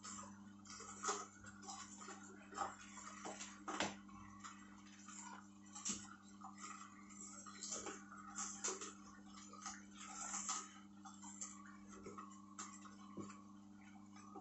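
Hurom DA1000 slow juicer running with a steady low motor hum while its auger crushes celery stalks. Irregular snapping and crackling clicks sound as the celery is broken down, with a few louder cracks.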